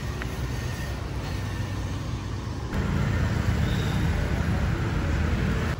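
Street traffic: scooters, motorbikes and cars running by in a steady rumble that gets louder about three seconds in.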